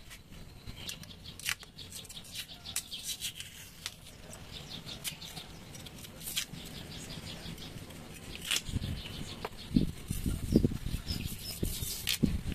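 Cassava roots being peeled: scattered light clicks and snaps of the skin coming away, with a run of dull knocks from about nine seconds in.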